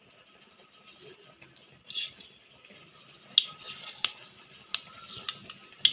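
Mustard seeds dropped into hot oil in a pan, crackling and popping with sharp irregular snaps from about three seconds in.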